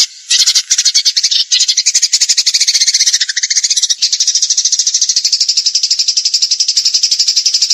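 A rapid, high-pitched trill of very fast, evenly spaced pulses, held steadily for several seconds with a couple of brief breaks near the start, from a masteran recording used to tutor songbirds.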